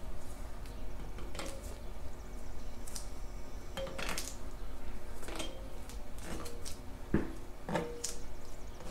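Steel head studs clinking against the engine block and head gasket as they are set in and threaded by hand: a scattered series of light metallic clicks and taps, some with a brief ring.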